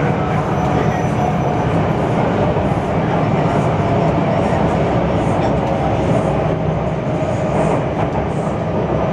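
MTR C-Train running along the line, heard from inside the carriage: a loud, steady rumble of wheels and running gear with a faint steady whine.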